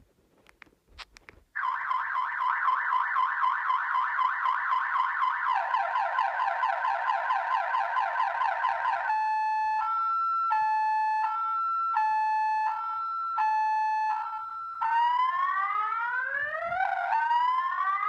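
Viper car alarm siren set off in panic mode, cycling through its tones: first a fast warbling chirp, then from about nine seconds in a two-tone high-low alternation, then repeated rising whoops near the end. A few faint clicks come just before the siren starts.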